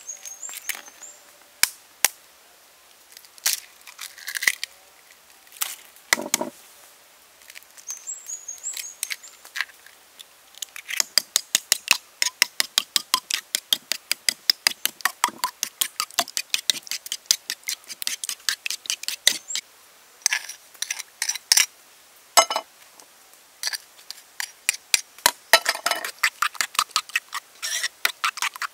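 Eggs cracked open over a bowl, with a few scattered sharp taps and clicks. After about ten seconds a metal spoon beats the eggs, clicking rapidly against the bowl at about four or five strokes a second with brief pauses.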